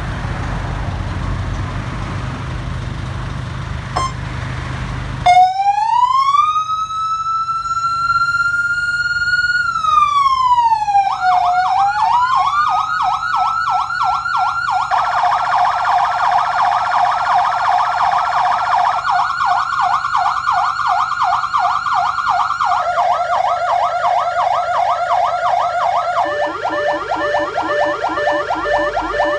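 A steady noise, then about five seconds in a Powerarc electronic siren comes on and steps through its tones. First comes one slow wail that rises, holds and falls, then faster and faster yelping sweeps, and near the end a rapid pulsing warble.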